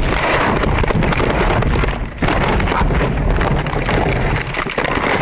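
A car crash heard from inside the car: loud, continuous noise with many knocks and clatter, with a brief dip about two seconds in.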